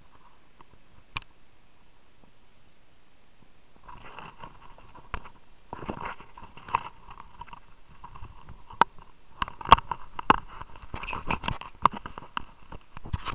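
Syma X8C quadcopter's motors and propellers starting up on grass, rising from near quiet after about four seconds into a buzzing whine, with many sharp clicks and crackles that get louder and denser toward the end.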